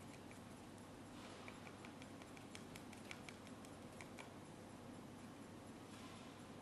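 Faint, irregular ticks and light taps of a paintbrush dabbing thick paint onto a board, over a low steady room hum.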